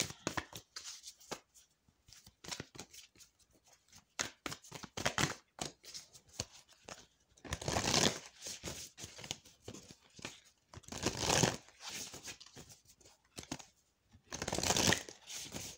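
Oracle card deck being shuffled by hand: a quick patter of cards slipping and tapping against each other, with three louder, longer shuffling runs, about halfway, a few seconds later, and near the end.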